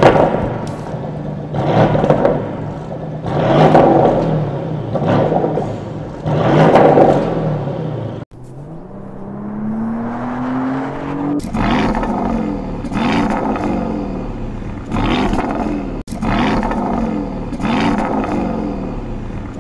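2024 Porsche Cayenne S's 4.0-litre twin-turbo V8 accelerating hard, the engine note surging and climbing with revs and gearshifts. A sudden cut comes a little past eight seconds in, followed by one long rising pull and then repeated swells of revs after a second cut near eleven seconds.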